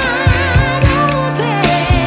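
Background music: a pop/R&B song with a singing voice holding long, wavering notes over a steady drum beat and bass.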